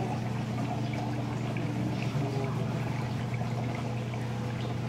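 Water trickling and pouring as it drains between the chambers of a model lift lock, slowing near the end with little water pressure behind it, over a steady low hum.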